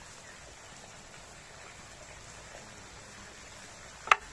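Steady faint hiss of water running through a swimming pool's overflow gutter, with soft knife scraping as a papaya is peeled. About four seconds in comes a single sharp, loud click.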